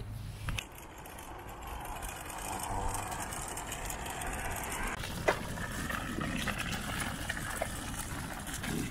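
Steady road noise of wheels rolling on pavement, with a single sharp click about five seconds in.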